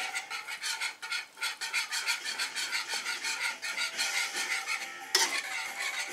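Wire whisk beating grated Parmesan into a thick cream sauce in a steel frying pan: quick, even strokes of the wires scraping and swishing against the pan, with one louder clink against the metal about five seconds in.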